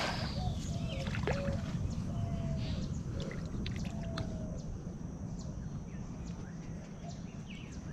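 Faint water sounds in a shallow creek over a steady low rumble, just after a cast net has landed, with a few faint short whistles and light ticks.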